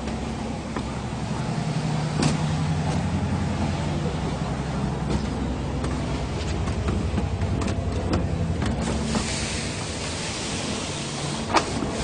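Concrete mixer pump's engine running at a steady speed, with a few sharp knocks and a hiss lasting about two seconds near the end.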